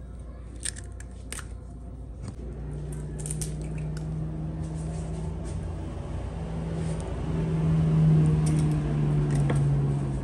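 A couple of sharp clicks as eggshells are cracked, then a steady low hum with a clear pitch that grows louder, loudest about eight seconds in.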